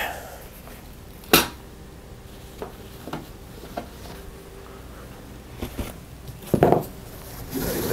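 Camping gear being handled on a fabric mat: a sharp knock about a second and a half in, a few light clicks, and a louder short clatter near the end.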